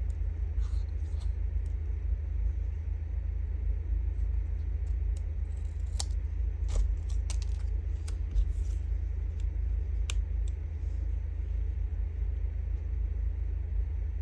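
Scissors snipping and paper strips being handled on a table: a few sharp snips and taps around the middle, over a steady low background rumble.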